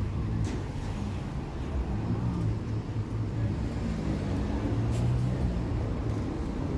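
City street traffic: vehicle engines running steadily in the low range, with a couple of faint sharp ticks.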